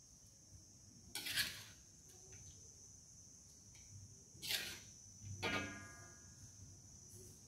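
Metal ladle scraping and knocking against a steel wok as stir-fried food is scooped onto a plate: three short scrapes, about a second, four and a half and five and a half seconds in, the last with a brief metallic ring. A faint steady high-pitched tone runs underneath.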